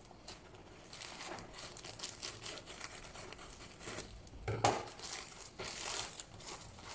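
A black plastic courier mailer bag being cut and pulled open by hand, the plastic crinkling and rustling in irregular strokes, with a louder rustle about four and a half seconds in.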